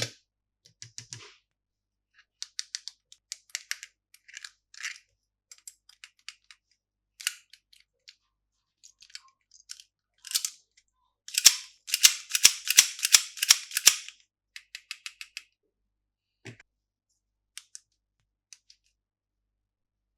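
Plastic candy packaging crinkling and crackling as it is handled and opened: scattered short crackles, then a louder dense run of sharp crackles for a couple of seconds just past the middle.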